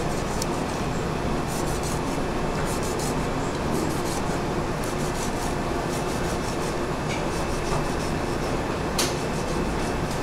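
Chinese cleaver scoring a scaled mullet fillet on a wooden chopping block: a run of light, crisp clicks as the blade cuts through the scaly skin, with a sharper tap of the blade on the block near the end. Under it runs a steady rumbling background noise.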